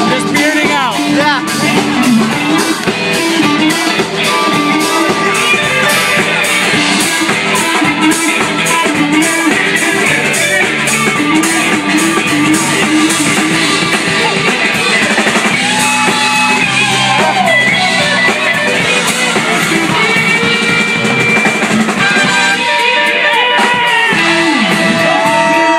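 Live rock band with an electric guitar solo: a Stratocaster-style guitar plays lead lines full of string bends and vibrato over bass guitar and a drum kit, moving to long held, bent notes near the end.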